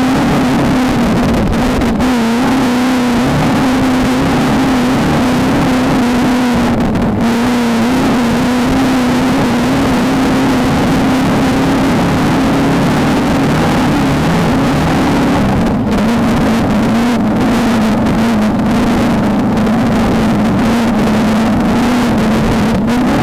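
VW Beetle desert race car's engine running hard and fairly steadily at high revs, with a few brief dips as the throttle eases.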